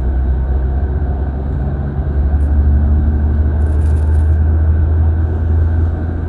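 Scania K360 bus engine running with a deep, steady rumble that swells louder about two seconds in and eases off again near the end.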